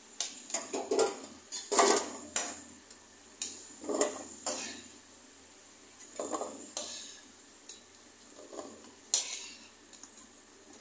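Perforated metal skimmer scraping and clinking against a metal kadhai as fried potatoes are scooped out of hot oil: a dozen or so irregular strokes, with a faint sizzle of the oil between them.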